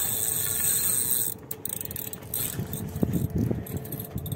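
A steady rushing noise cuts off about a second in, followed by irregular mechanical clicking from fishing gear.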